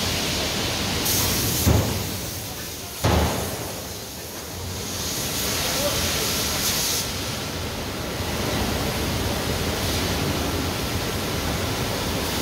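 Drop-forging hammer striking hot steel in the die: two heavy blows about a second and a half apart, over a steady loud hiss of forge noise, with louder bursts of hissing twice.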